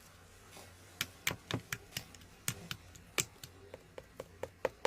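A run of short, sharp clicks and taps at uneven spacing, several a second, starting about a second in.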